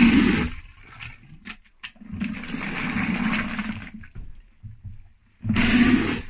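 Three bursts of rushing water: a short one at the start, a longer one of about two seconds in the middle, and a short one near the end.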